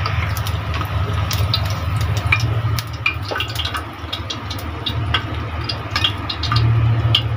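Hot oil crackling and popping in a frying pan after a fried egg is lifted out, over a steady low hum.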